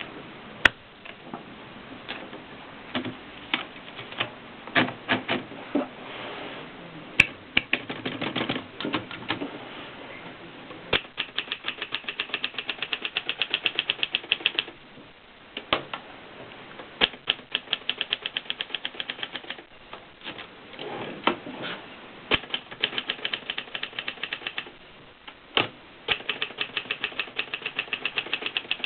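Adler Tippa S portable manual typewriter being typed on: runs of quick key strikes, about eight to ten a second, with pauses and occasional louder single clacks between them.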